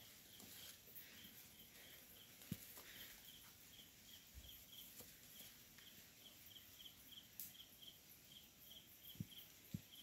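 Faint forest ambience: an insect chirping in an even series of high chirps, about three a second. A few soft low thumps stand out, one about a quarter of the way in and two near the end.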